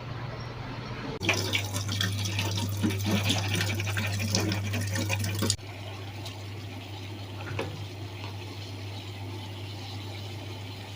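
Water pouring and splashing for about four seconds, starting and stopping abruptly, then a quieter steady hiss with a low hum underneath.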